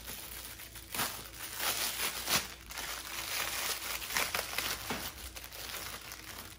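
Paper crinkling in irregular bursts as a folded sheet is handled and opened out, loudest about a second in and again around two seconds in.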